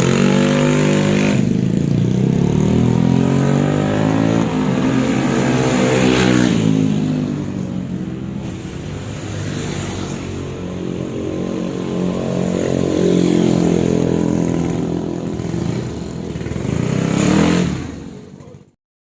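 Yamaha Mio scooter's single-cylinder four-stroke engine running under throttle, its pitch rising and falling several times as it speeds up and eases off. The sound stops abruptly near the end.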